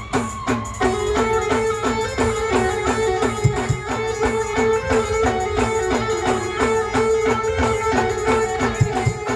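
A band playing an instrumental tune: a steady drum beat of about three strokes a second, with a held melody line that comes in about a second in.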